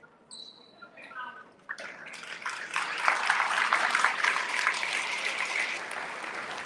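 A short, high whistle near the start, then a crowd breaking into clapping and cheering about two seconds in. The applause grows louder and keeps going.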